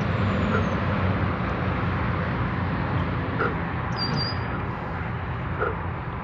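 Steady outdoor background rumble and hiss, heaviest in the low end. A few short, faint calls from an unseen animal sound at intervals over it, the noise the angler says he can't place.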